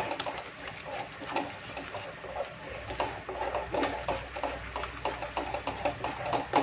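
Wooden spatula stirring and scraping a thick tomato masala in a steel pot, with irregular knocks and clacks as it hits the pot's sides and bottom.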